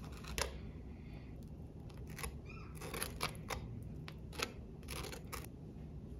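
A series of short clicks and knocks from kitchen utensils and dishes being handled, about nine in all, spaced irregularly.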